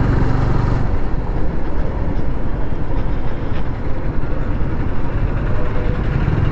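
Motorcycle riding along at road speed, its engine humming low under a steady rush of wind noise on the rider's microphone.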